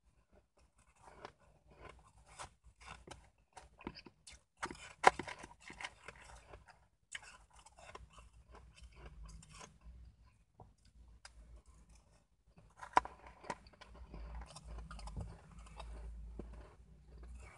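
Close-up chewing and crunching of mouthfuls of shaved ice: a run of crisp, irregular crunches, with two sharper, louder ones about five and thirteen seconds in.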